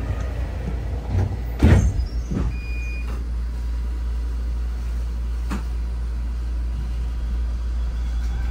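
Inside a Fukui Railway F1000 tram standing at a stop: its equipment hums low and steady, with a loud clunk about two seconds in and a few lighter knocks after it.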